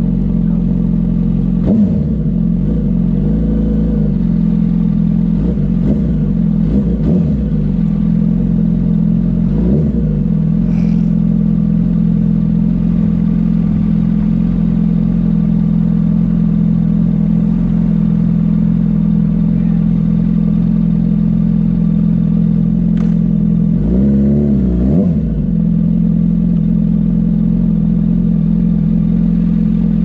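2005 Yamaha YZF-R1's inline-four with straight-pipe exhaust idling steadily, loud. It gives a handful of short throttle blips in the first ten seconds and two more about four-fifths of the way through.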